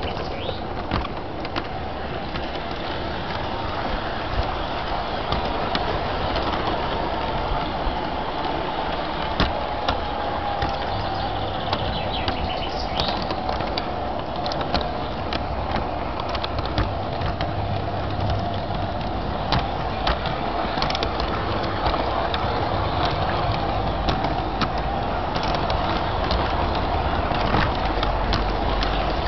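LGB garden-scale model of a Corpet locomotive running on its outdoor track: a steady motor whine that drifts slowly in pitch, with scattered clicks from the wheels and track.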